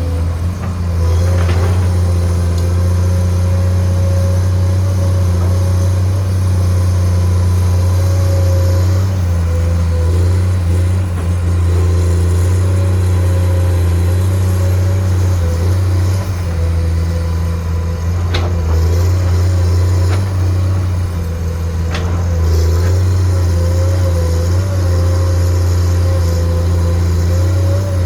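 Komatsu PC210 hydraulic excavator's diesel engine running steadily under working load, its pitch wavering slightly. Two sharp knocks come a few seconds apart past the middle.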